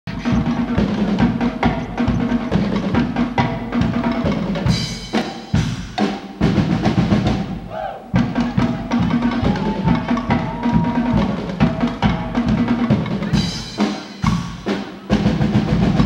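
Guggenmusik band playing a carnival tune: saxophones, trombones and sousaphone blaring over a heavy, driving beat of bass drum and snare. The beat breaks off briefly twice.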